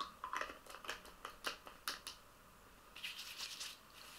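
A quick run of light clicks and taps from handling a small bottle of argan oil, then about three seconds in a brief rubbing and rustling of hands working the oil through hair.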